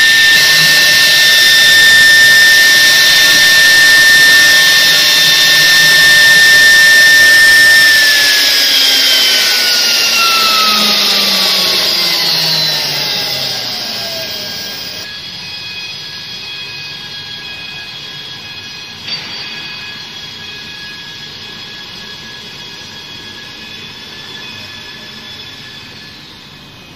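Spindles of a double-head CNC wood router (two 3 kW water-cooled spindles) running with a steady high whine. About eight seconds in they spin down, the whine falling steadily in pitch over several seconds until it fades, leaving a much fainter steady hum.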